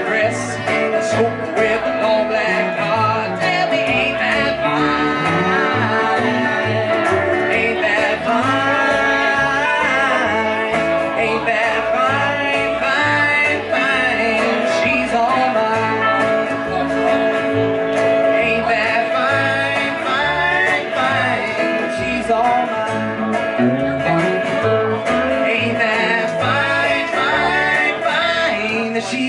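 Live country band playing: electric guitar over an upright bass.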